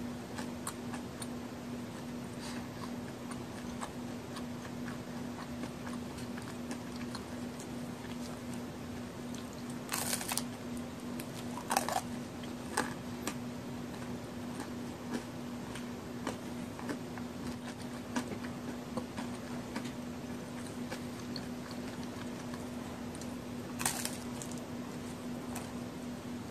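Close-up eating of a large homemade chocolate-and-raisin cookie, crisp outside and moist inside: a few crunching bites, two close together about ten seconds in and one near the end, with soft chewing between. A steady low hum runs underneath.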